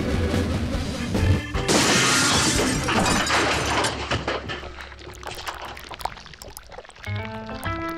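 Cartoon soundtrack: background music, then a loud crash sound effect of about a second, about two seconds in, that dies away over the next couple of seconds; new music notes come in near the end.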